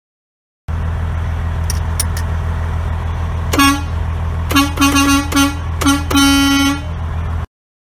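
Semi truck air horn sounded over the steady rumble of the truck's diesel engine: one short blast, then a quick run of short toots, then a longer blast near the end.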